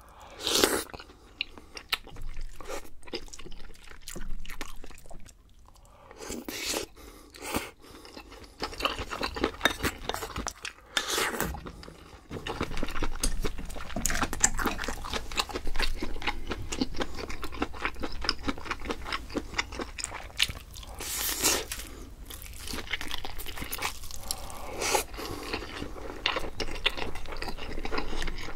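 Close-miked chewing and eating: dense crackly mouth sounds with a few louder crunches scattered through.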